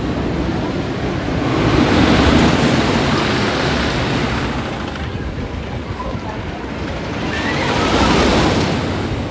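Wooden roller coaster train running past along the timber track, a rushing rumble that swells up and fades twice.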